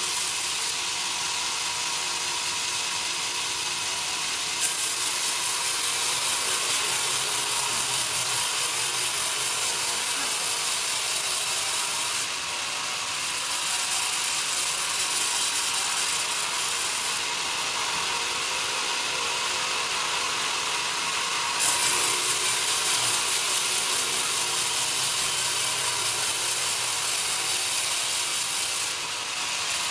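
Sawmill band saw headrig running with a steady whine. Twice, about five seconds in and again a little past twenty seconds, the blade bites into the young pine log on the carriage: a loud hissing cut rises suddenly, holds for several seconds, then falls back as the cut ends.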